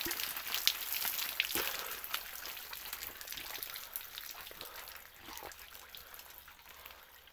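Water dripping and splashing: an irregular patter of drops that fades away.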